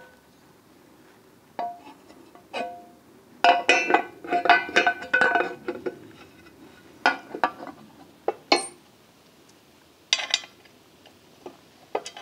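Metal parts of a motorcycle rear luggage rack clanking and clinking against each other as they are handled and fitted together, each knock ringing briefly. A busy run of knocks comes from about three and a half to six seconds in, with scattered single knocks before and after.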